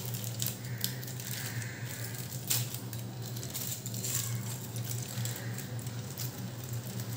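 Aluminium foil crinkling and light metallic clicks and ticks as a foil-wrapped baked chicken is opened, over a steady low hum.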